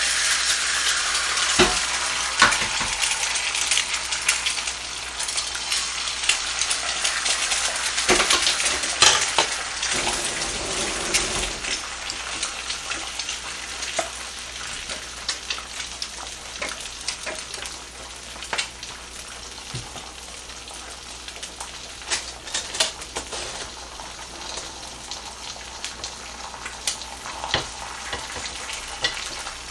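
Two eggs frying in a hot oiled frying pan: a steady sizzle with scattered spitting pops. It is loudest for about the first ten seconds after they go in, then settles lower.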